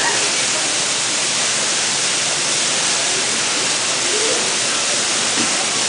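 Steady rushing of water in an aquarium pool, an even loud hiss with no breaks.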